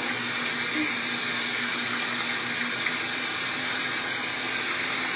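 Kitchen faucet running steadily into a stainless steel sink, the stream splashing over a wet puppy as hands rub its coat.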